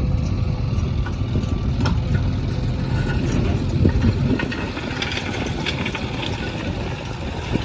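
Diesel engine of a backhoe loader running steadily with a low rumble, with a few short clicks and knocks through the middle.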